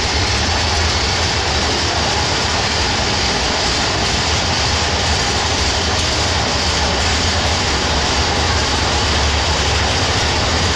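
Steady, loud rumble and rattle of a theme-park ride vehicle running along its track.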